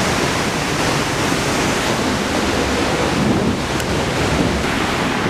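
Waterfall pouring into a deep plunge pool, heard close up as a steady, loud rushing of water.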